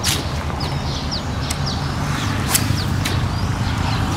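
A bird chirping over and over in short, quickly falling notes above a steady low rumble, with a few sharp clicks.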